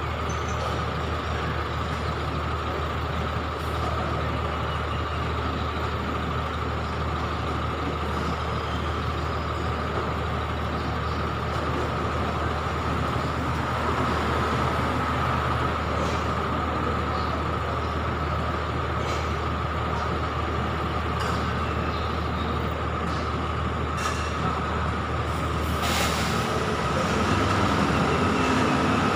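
City bus idling close by: a steady low engine drone with a steady whine above it. Near the end comes a short hiss of air, then the engine note rises as the bus starts to pull away.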